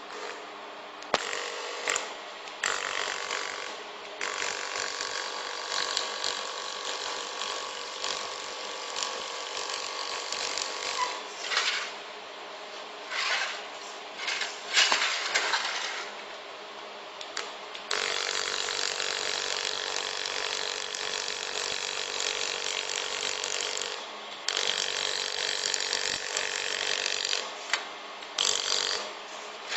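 Laser welding machine firing in runs of several seconds, with short bursts between: a crackling hiss from the weld over a steady hum from the machine.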